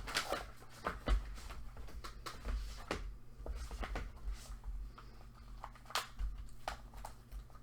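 Light rustling and scattered clicks of small items being handled and packed.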